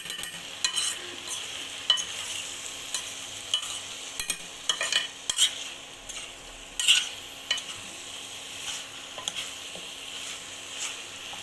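Chicken curry with masala sizzling in a cooking pot while a spoon stirs and scrapes it, with scattered clicks of the spoon against the metal.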